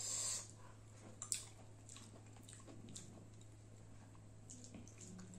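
Fingers mixing rice and curry on a steel plate, with faint wet squishing and small clicks. There is a short hiss at the start and a sharp click about a second in, over a steady low hum.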